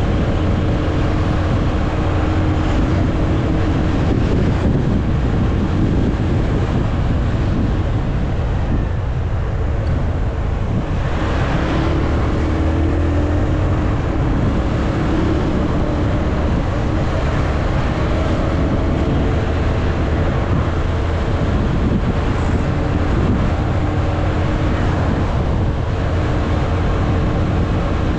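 Wind rushing over the action camera's microphone on a moving motorcycle, with the bike's engine running steadily underneath. The noise rises briefly about eleven seconds in.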